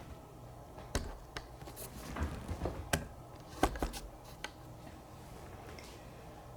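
Irregular light clicks and knocks, about eight over three or four seconds, over a low steady hum in a quiet room.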